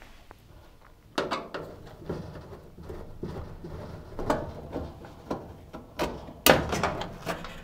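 Screwdriver undoing the screws under a cooker's control panel: small clicks and light scraping of metal on the panel, then a few louder knocks about six and a half seconds in.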